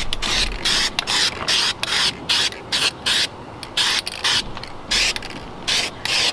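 Aerosol spray-paint can hissing in quick short bursts, about three a second, with a couple of brief pauses, as paint is sprayed onto a car bumper.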